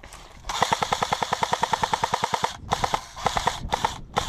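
Airsoft electric gun (AEG) firing on full auto: one long rapid burst of about two seconds, then a couple of shorter bursts and a brief one near the end.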